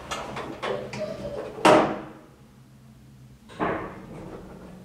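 Elevator's hinged door swinging shut: a few light clicks, then a loud closing thud about two seconds in, and a softer knock a couple of seconds later.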